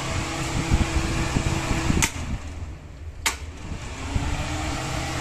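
Desert air cooler's fan motor running with a steady hum. About two seconds in come two sharp switch clicks just over a second apart. The hum drops between them, then rises in pitch as the motor speeds back up.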